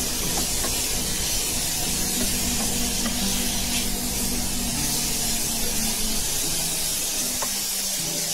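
Sliced cucumber sizzling in hot oil in a frying pan, stirred with a wooden spatula: a steady hiss with a few faint scrapes, the cucumbers given only a brief fry. A low hum under it drops away about six to seven seconds in.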